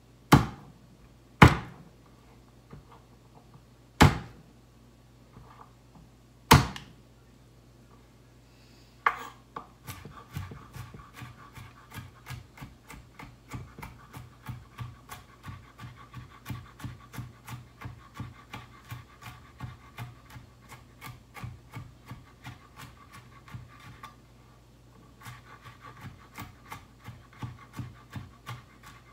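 Kitchen knife chopping garlic on a wooden cutting board. It starts with four separate heavy knocks, then settles into rapid, even mincing strokes at about three a second, with a brief pause near the end before the chopping resumes.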